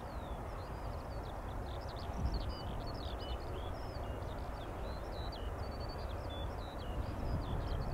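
Small songbirds chirping and twittering almost without a break, over a steady low rumble.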